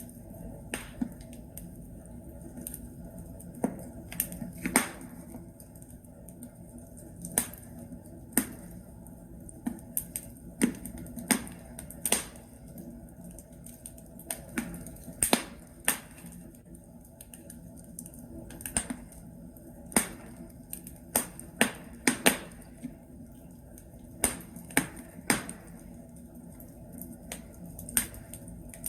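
Logs burning in a fireplace, crackling: irregular sharp pops and snaps, sometimes several in quick succession, over a low steady hiss.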